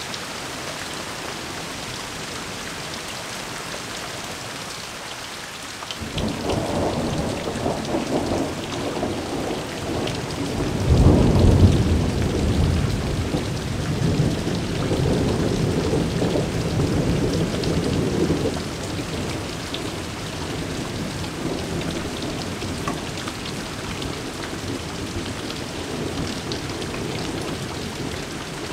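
Heavy rain pouring down steadily, with a peal of thunder that breaks in suddenly about six seconds in, grows to its loudest a few seconds later, rumbles on for several seconds and then fades back under the rain.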